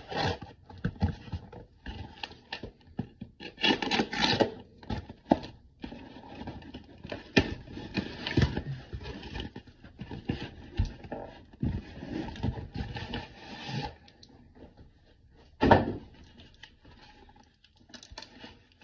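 Cardboard shipping box being opened and handled: cardboard scraping and rustling, with irregular knocks against the table. The loudest is one sharp knock about three-quarters of the way through.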